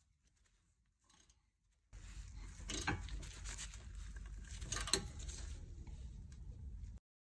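Ratchet wrench clicking as it is worked on a rear brake caliper carrier bolt, starting about two seconds in, with two louder metallic knocks around three and five seconds in; it stops suddenly near the end.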